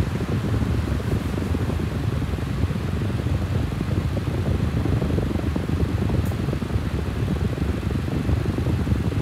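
Steady low rumble of moving air, with one faint click about six seconds in.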